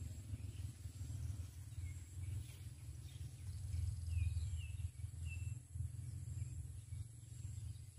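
Outdoor wind rumbling on the microphone, with a few faint short bird chirps about four to five seconds in over a steady high insect drone.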